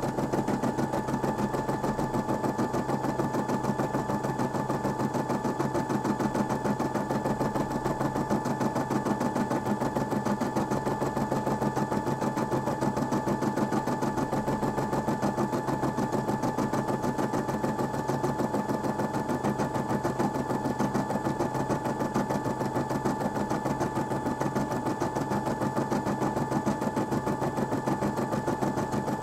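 Brother Disney M280D embroidery machine stitching out a design: a rapid, even run of needle strokes over a steady hum.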